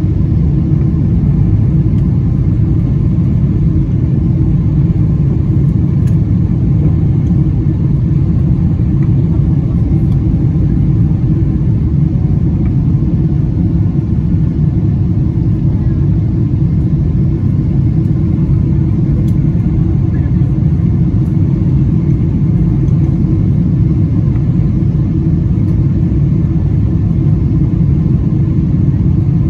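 Steady low rumble of a Boeing 777-300ER's GE90-115B turbofans and airflow heard from inside the cabin.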